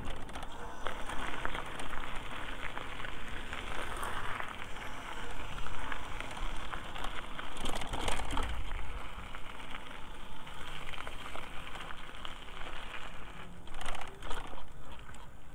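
Riding noise of a personal electric vehicle heard from its handlebars: steady tyre rumble and gritty rattle over the path, with wind on the microphone. A couple of louder jolts come about eight and fourteen seconds in.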